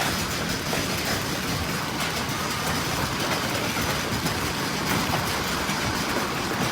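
Heavy hail pelting down, a steady, dense roar made of countless rapid impacts.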